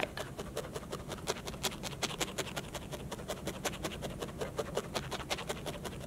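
A barbed felting needle jabbing again and again through wool roving into a foam block: a quick, even series of soft pokes, about five or six a second. It is felting the loose wool into a flat sheet.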